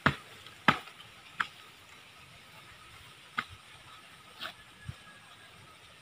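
Sharp wooden knocks as logs are shifted and set into place to form a rectangular frame. There are six in all, loudest in the first second and fainter after that.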